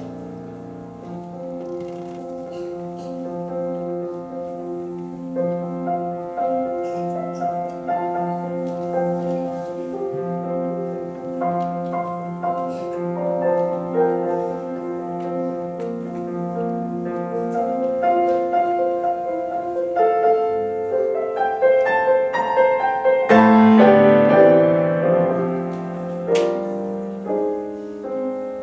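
Piano playing a Christmas hymn arrangement in sustained notes and chords, growing louder with fuller chords from about twenty seconds in.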